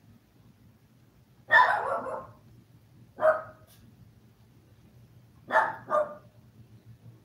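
A dog barks four times, the last two in quick succession.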